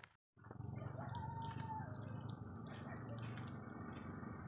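Kittens eating, with scattered small clicks of chewing over a steady background noise and one short faint call, rising then falling, about a second in.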